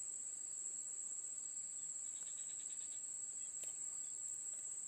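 Steady high-pitched drone of insects, unbroken throughout, with one faint click about three and a half seconds in.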